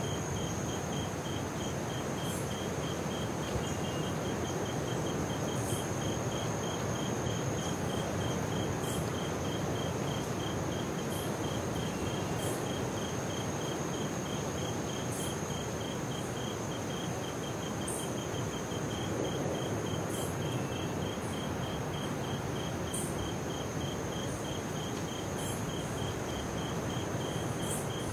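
Tropical rainforest insects by the sea: one steady high buzz, a second insect giving a rapid, even pulsing call, and short high chirps every couple of seconds, over a steady rush of ocean surf.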